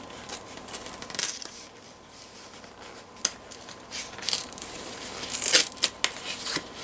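Packaging being wrestled open by hand: crinkling and tearing with scattered sharp clicks and snaps, busiest about five and a half seconds in.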